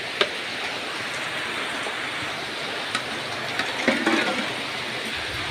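A wok of bamboo-shoot curry boiling over a wood fire: a steady bubbling hiss, with a few light clicks and a brief louder sound about four seconds in.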